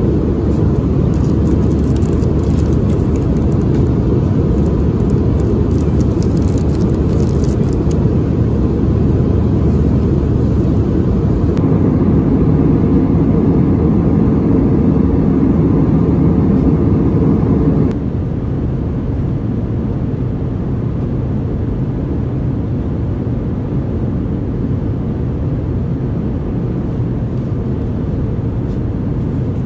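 Steady low rush of cabin noise inside an Airbus A320 in cruise, from the engines and the air streaming past the fuselage. There are light crackles during the first several seconds. The noise steps down in level about eighteen seconds in.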